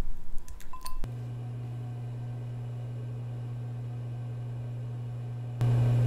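A few clicks and one short beep from a microwave oven's controls, then the oven starts and runs with a steady low hum. Near the end the hum suddenly gets louder.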